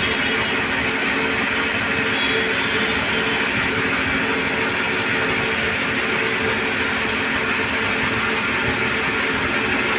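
CNC lathe running while turning a pin: a continuous, even machine noise with a faint steady hum beneath it.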